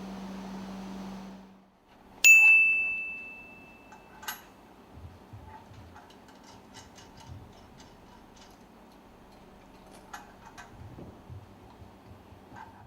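A steady hum that cuts off, then one sharp metallic ding that rings clear and fades over about two seconds, followed by scattered light ticks and clicks.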